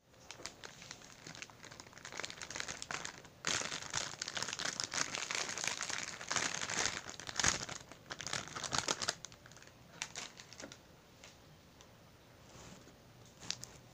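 Thin plastic wrappers crinkling as they are pulled off individually wrapped mamon sponge cakes. The crinkling is densest and loudest in the middle, then thins to a few light crackles near the end.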